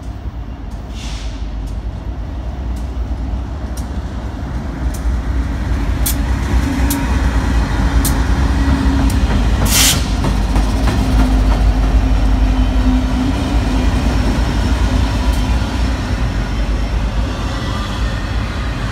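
Several BNSF GE diesel-electric locomotives at the head of an intermodal freight train passing close by, their engines' low rumble growing louder as they approach and go past. A steady hum runs through the middle, and a few sharp clicks sound, the loudest about ten seconds in.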